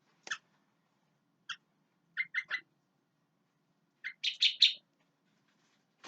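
Sooty-headed bulbul (kutilang) calling in short, clear notes: a single note near the start and another about a second later, a quick run of three, then a louder four-note phrase about four seconds in.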